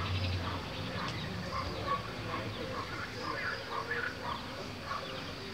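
Short animal calls repeating irregularly in the background over a faint outdoor hiss, with a low hum that stops about half a second in.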